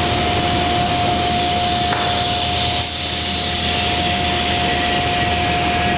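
Lobo CNC panel saw running: steady machine noise with a constant whine, a click about two seconds in and a short high falling whistle about three seconds in.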